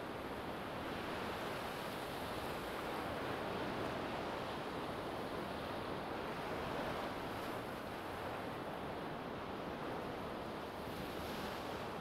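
Small ocean waves breaking and washing up a sandy beach: a continuous surf hiss that swells and eases gently every few seconds.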